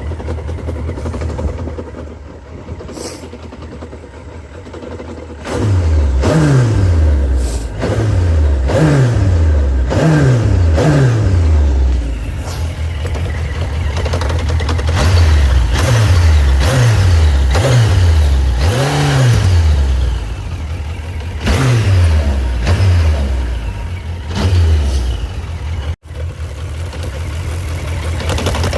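Suzuki GSX1250FA's inline-four engine idling, then blipped on the throttle again and again from about five seconds in, each rev rising quickly and falling back to idle, roughly once a second.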